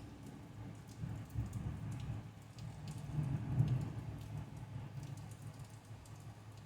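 Thunder rumbling low and unevenly, swelling about one and a half and three and a half seconds in, then dying away, with scattered raindrops ticking.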